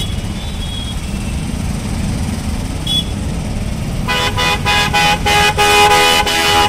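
Vehicle horns honking in a quick run of short toots, starting about two-thirds of the way in, over a steady rumble of street traffic.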